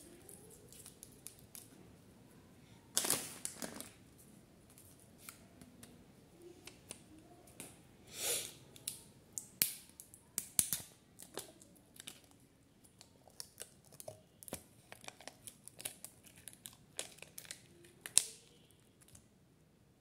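Thin plastic sealing film being peeled off a small plastic jelly cup: two longer tearing rips, about three and about eight seconds in, among many small crackles and clicks of the thin plastic cup being handled.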